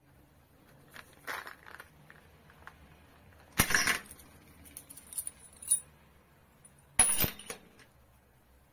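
Titanium-coated hex-shank tap drill bits and their small plastic case being set down on a board: a few light clicks, then two louder metallic clattering clinks, one about three and a half seconds in and one about seven seconds in.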